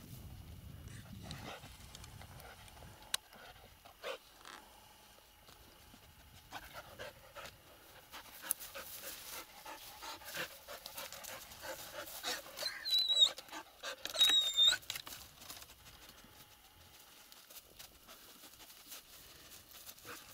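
A laika dog panting as it searches, with two short high-pitched whines about two-thirds of the way through.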